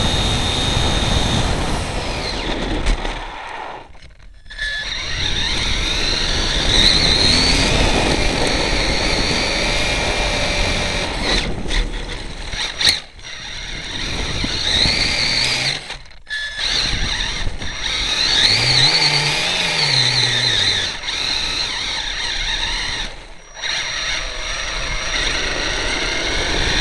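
Onboard sound of an HPI E-Firestorm Flux brushless electric RC truck driving on pavement. The motor and drivetrain whine rises and falls with throttle over rough tyre-and-chassis rattle noise, and the sound drops away briefly several times.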